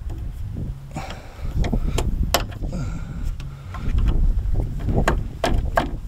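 Scattered clicks and knocks of hands working at the Range Rover's tailgate and its gas strut fittings from inside the boot, over a steady low rumble.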